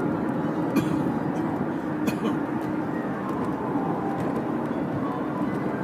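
Steady road and engine noise inside the cabin of a moving car, with two faint clicks about one and two seconds in.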